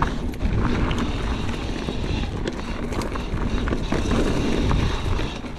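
Mountain bike descending a dirt trail: tyres rumbling over dirt and rocks with scattered knocks and rattles, and steady wind buffeting the microphone.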